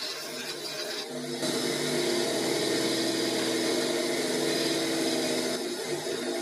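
Bench grinder running steadily while a high-speed steel tool bit in a boring bar is pressed against the wheel, grinding its cutting profile. The grinding gets louder about a second and a half in and eases off near the end, over the steady motor hum.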